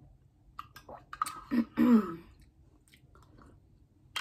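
Mouth sounds of eating from a spoon: wet clicks and smacks, with a short throat sound about one and a half seconds in, the loudest moment.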